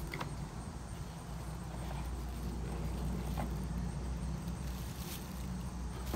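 A cardboard box and a bubble-wrapped figurine being handled, giving a few faint rustles and clicks over a steady low background rumble.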